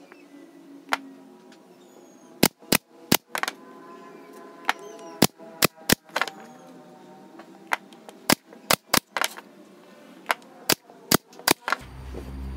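Pneumatic brad nailer firing nails into a wooden frame: about twenty sharp shots, mostly in quick runs of two to four. A low machine hum starts near the end.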